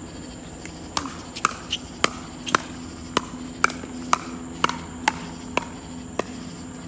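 Pickleball rally: about a dozen sharp pops of paddles hitting the hollow plastic ball, coming roughly two a second as the players volley at the net.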